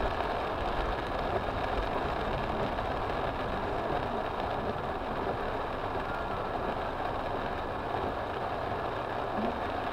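Steady rushing noise from inside a car in a torrential downpour: heavy rain on the windshield and body, with the engine running underneath.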